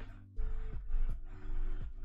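Background music with held chords over a steady beat of low, downward-sliding thumps.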